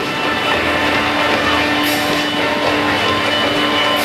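Guitar-led music playing steadily, with a faint sharp crack about two seconds in.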